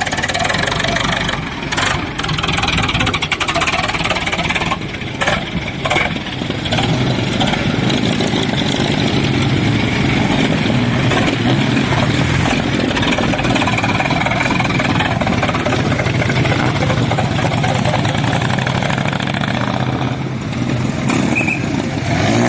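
The engine of a pre-war vehicle running steadily and loud close by, with a few sharp knocks in the first six seconds.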